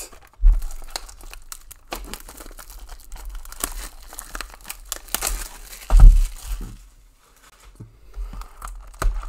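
Plastic shrink-wrap being torn off a sealed trading card box and crumpled, an irregular crinkling and crackling. Two dull thuds, about half a second in and about six seconds in, as the box is knocked or set down; the second is the loudest sound.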